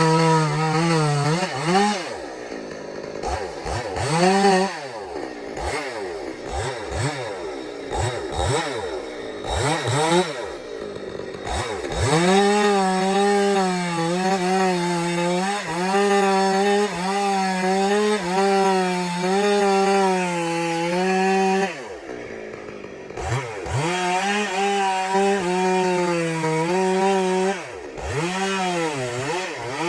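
Stihl two-stroke chainsaw cutting into a large chilaune (Schima wallichii) trunk. For the first dozen seconds it revs up and down repeatedly. It then runs at steady high speed under load for about ten seconds, drops off briefly, and revs up and cuts again.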